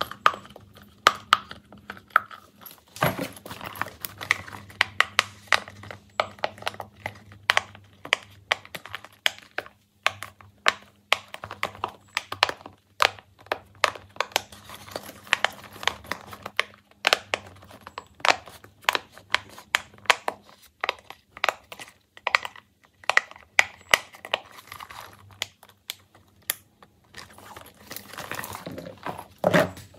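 Silicone pop-it fidget bags being handled, their bubbles pressed so that they pop and click irregularly, several times a second, with soft rubbing of the silicone between the pops.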